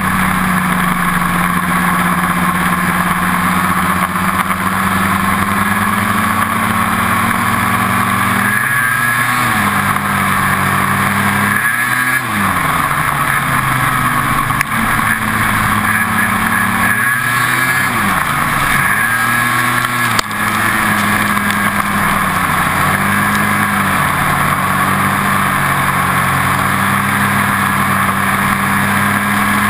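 Ski-Doo snowmobile engine running at a steady cruise, its pitch dropping and climbing back several times through the middle as the throttle is eased off and reopened, then settling steady again.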